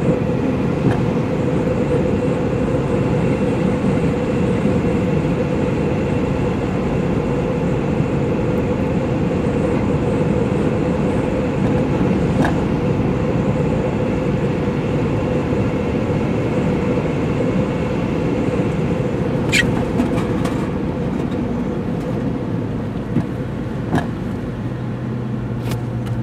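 Steady road and engine noise heard inside a moving car, with a few clicks in the second half.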